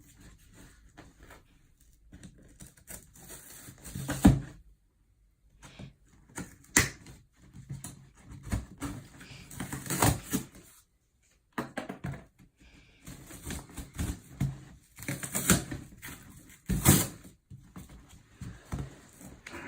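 Shipping box and packaging of a new anvil being opened and unpacked by hand: irregular scraping and rustling of cardboard and packing, with scattered knocks and a few louder clacks.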